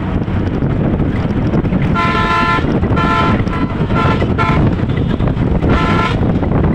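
A vehicle horn sounding in about five short toots, over the steady wind and road rumble of a moving vehicle with wind on the microphone.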